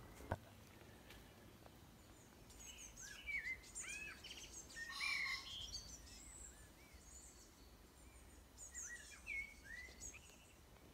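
Small birds chirping in two spells of quick, arching notes over a faint steady hiss of the riverside. A brief click comes just after the start.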